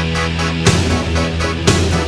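Rock music: sustained low notes with a heavy drum hit about once a second.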